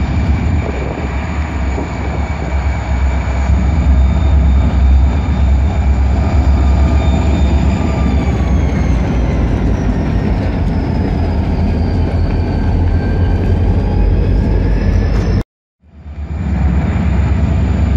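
BNSF diesel-electric locomotives rolling slowly past, a loud, steady low engine rumble with a thin high whine that slowly falls in pitch and rises again. The sound cuts out for about half a second near the end, then the same rumble resumes.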